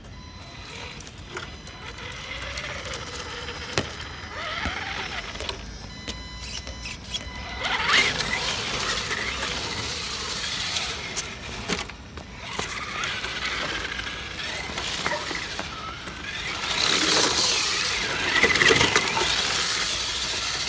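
RS4 radio-controlled drift car running, its motor pitch rising and falling with the throttle and its tyres sliding, louder about a third of the way in and again near the end.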